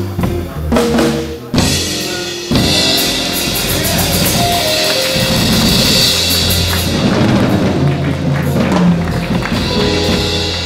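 Live small-band jazz with saxophone, piano, upright bass and drum kit playing together. About two and a half seconds in, the band comes back in loud, with the drums and a bright cymbal wash over sustained notes, building toward the end of the tune.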